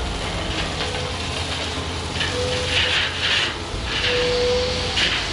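Dump truck delivering a load of road bond gravel: the diesel engine runs steadily, with bursts of hiss in the middle and near the end, and a few short tones.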